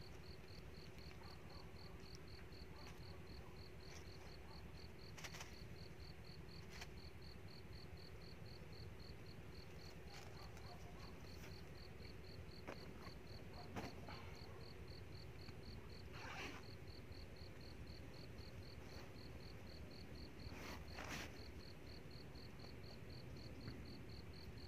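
A faint, steady, evenly pulsed high chirping from an insect, running on without a break. A few soft clicks and rustles come from the wire-mesh snake trap being handled, the clearest about a quarter of the way in, two-thirds of the way in and near the end.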